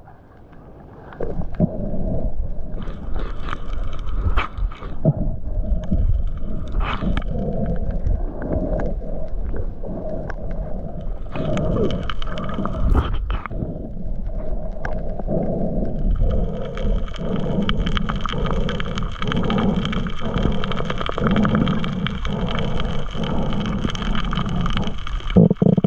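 Muffled rumbling and water movement with scattered clicks, as a camera picks it up under water; from about two-thirds of the way through, a steady higher hiss joins it.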